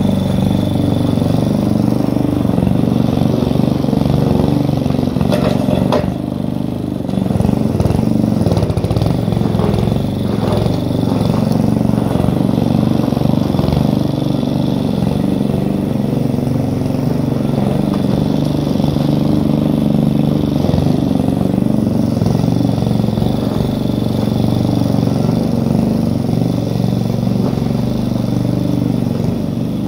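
Petrol walk-behind lawn mower engine (Yard Force) running steadily at working speed while cutting long grass. The level dips briefly about six seconds in, with a few light clatters around six and ten seconds in.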